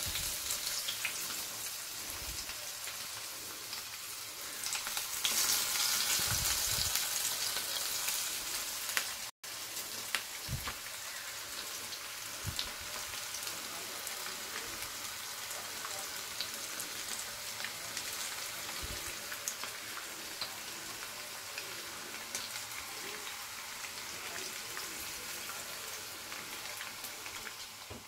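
Batter-coated chicken pakoda pieces deep-frying in hot oil in a kadai: a steady sizzle, louder for a few seconds as more pieces are dropped in. The sound cuts out for a split second about nine seconds in.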